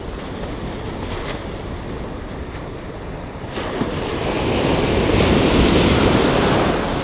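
Ocean surf washing in around the feet: a steady wash of small breaking waves, with one wave rushing in louder about four seconds in and easing off near the end. Wind buffets the microphone.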